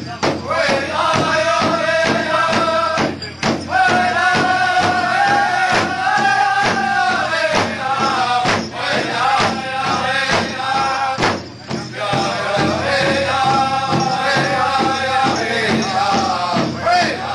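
Powwow drum group beating a large shared drum in a steady, even rhythm while singing together in high-pitched voices, the song breaking off briefly between phrases.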